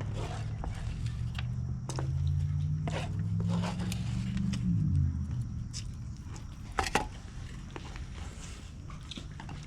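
A motor vehicle's engine passing by: a low engine hum rises slightly, then its pitch drops and it fades about five seconds in. Scattered light clicks, and one sharp knock about seven seconds in.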